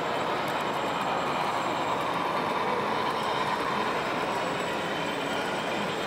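Model passenger train running along its track: a steady rolling noise of the motor and wheels on the rails.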